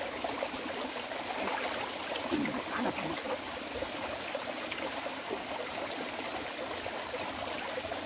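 Shallow mountain stream running steadily over rocks, an even rushing trickle.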